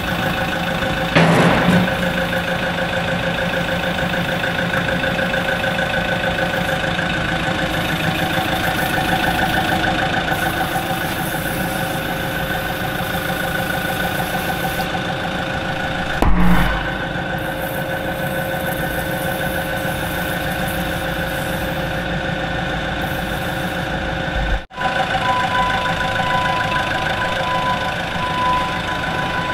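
An engine running steadily at idle. A reversing alarm beeps over it in the last few seconds.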